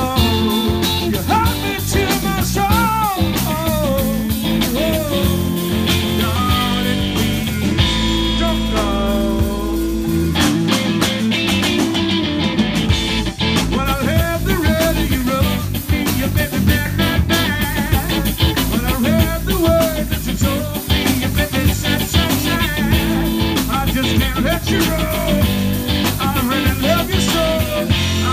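Live rock band playing, with electric guitars and a drum kit.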